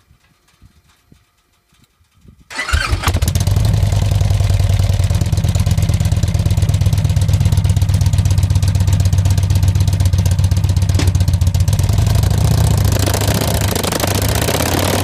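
A 2012 Victory Cross Country's V-twin engine, fitted with an aftermarket stage 1 Tri Oval exhaust, starts suddenly about two and a half seconds in after a quiet stretch. It then idles with a loud, steady, low throb.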